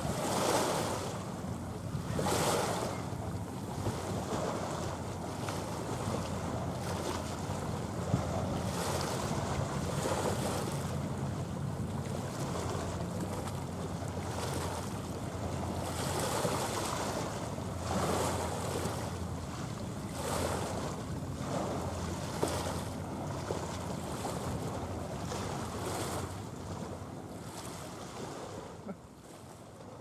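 Small waves washing onto the shore in a surge every couple of seconds, over a steady low rumble of wind on the microphone.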